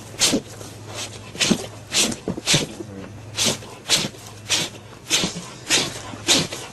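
An animal sneezing over and over in quick short sharp bursts, about two a second and often in pairs.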